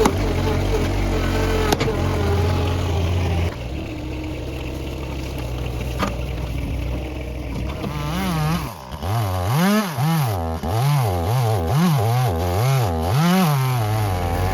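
Two-stroke chainsaw engine running steadily, then revved up and down over and over, about one and a half times a second, through the second half.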